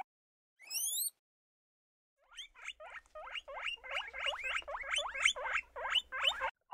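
Small rodent squeaking: one rising squeak about half a second in, then a quick run of short squeaks, about three or four a second, from about two seconds in until near the end.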